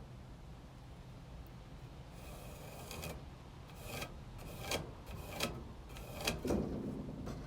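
A pencil drawing a line along a straight edge on a wooden board. After a quiet start it makes about six short scratching strokes, the later ones louder.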